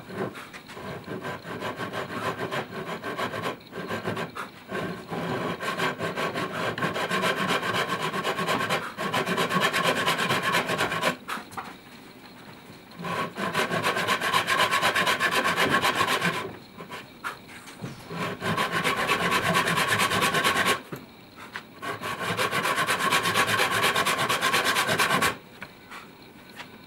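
Japanese-style handsaw cutting into a round wooden table leg with rapid back-and-forth strokes, trimming the leg to level the table. The sawing comes in four runs, with short pauses about 11, 16 and 21 seconds in, and stops a couple of seconds before the end.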